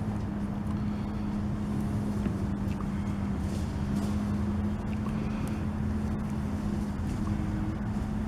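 A steady low mechanical drone with a constant hum, like a motor running without change.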